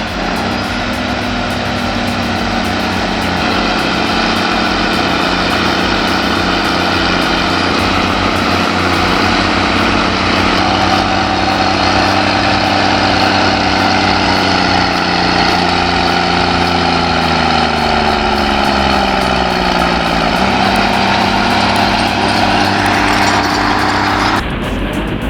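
Caterpillar bulldozer diesel engines running under load while pushing soil. The engine pitch sags over a few seconds past the middle, as the engine is loaded down, then picks back up. The sound changes abruptly just before the end.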